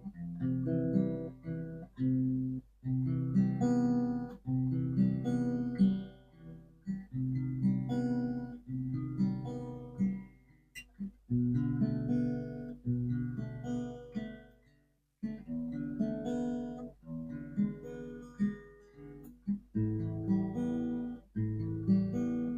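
Acoustic guitar playing a slow chord progression, with chords plucked and strummed and left to ring. There is a short pause about fifteen seconds in.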